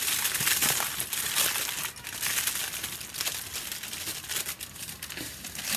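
Aluminium foil crinkling and rustling as it is folded up around a rack of ribs into a foil boat, loudest in the first two seconds.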